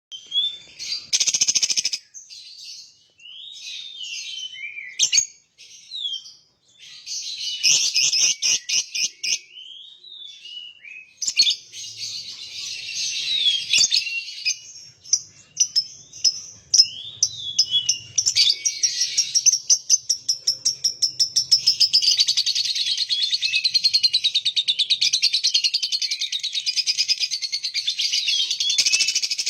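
Lovebird singing: scattered high chirps and short trills at first, then from about two-thirds of the way in one long, unbroken, rapid chatter, the extended 'ngekek' song prized by bird keepers.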